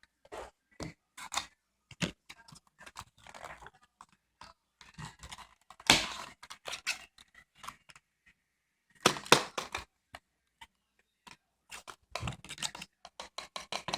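Hands handling and opening product packaging: an irregular run of clicks and short rustles, loudest about six and nine seconds in.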